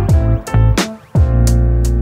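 Background music with a steady beat: plucked guitar over drum-machine hits and a deep bass.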